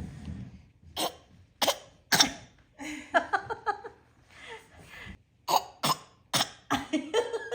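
A toddler's forced dry coughs, put on deliberately rather than from illness. There are about six short coughs in two bunches of three, a few seconds apart, with some small voice sounds between them.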